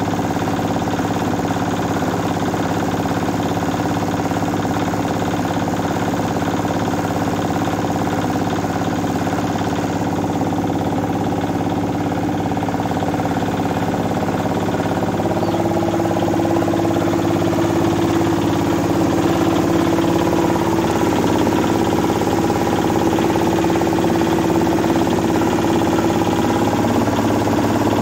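Old 8 hp diesel engine running steadily while it drives a rice mill. About halfway through, another steady hum joins in and the sound gets a little louder, as the mill takes in rice and starts milling it.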